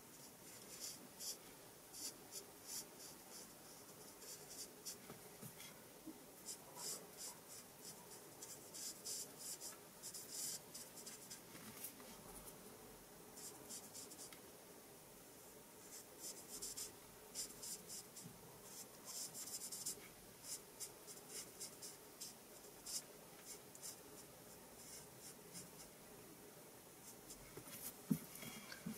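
Alcohol marker tip stroking over cardstock while colouring in a stamped image: faint, scratchy strokes in short runs, with brief pauses between runs.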